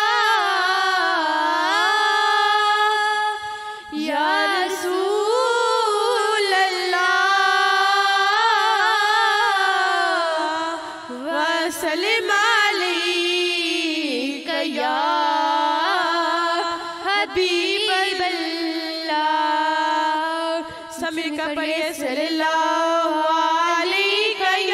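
Girls singing a Punjabi naat unaccompanied, in long drawn-out notes that waver in pitch, breaking off briefly every few seconds for breath.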